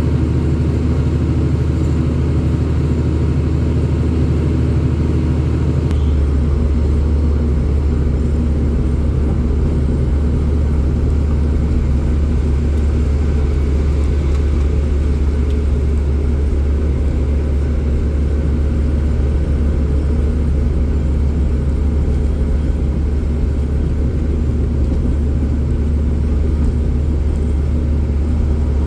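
An engine running steadily with a low drone; its note changes about six seconds in.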